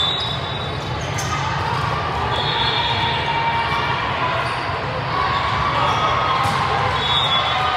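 Busy indoor volleyball hall: a steady din of many distant voices echoing in the large room, with balls bouncing on the hard court floor and a few short high squeaks.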